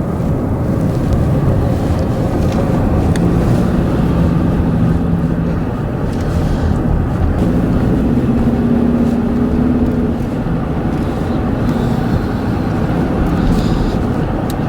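Car driving, heard from inside the cabin: steady road and engine noise with a low hum that drifts slightly in pitch.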